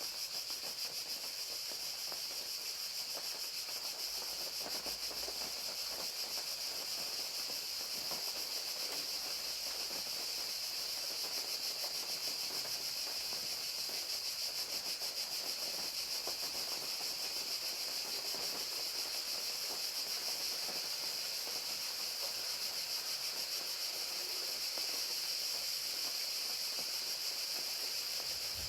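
Crickets chirping in a steady, high-pitched pulsing chorus over rain pattering, with no change throughout.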